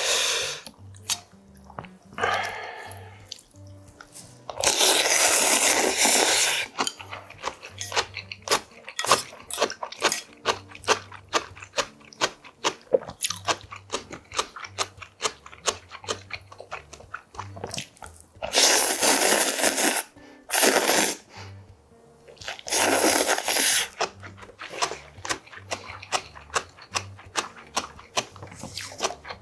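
A person slurping cold naengmyeon noodles in four loud slurps, one about two seconds long, between close crunchy chewing and wet mouth clicks.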